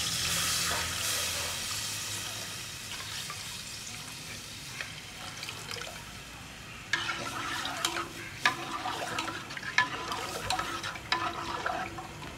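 Hot tempering in an aluminium pot sizzling as gram-flour and yoghurt batter is poured in, the hiss fading away over several seconds as the liquid fills the pot. From about halfway through, a spoon stirs and clinks against the metal pot.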